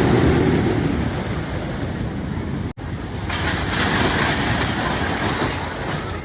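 Roller coaster running along its track: a loud, steady rushing rumble, broken by an abrupt cut about three seconds in.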